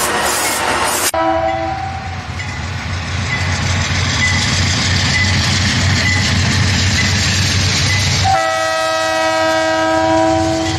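Diesel locomotive running past with a low engine drone and rail noise. Its air horn sounds a short chord just after an abrupt change in the sound about a second in, then a long steady blast near the end.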